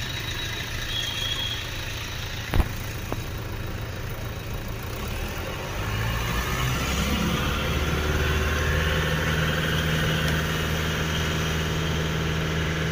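A motor vehicle engine running in the background with a steady low hum. About six seconds in, a second engine or motor speeds up with a faint rising whine and then holds a steady pitch. A single sharp clink of metal comes about two and a half seconds in.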